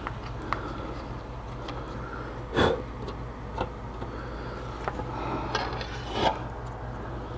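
Handling noises at a workbench as a battery is worked free of a computer motherboard during desoldering: light clicks and rubbing, with two louder knocks, one about two and a half seconds in and one near the end, over a steady low hum.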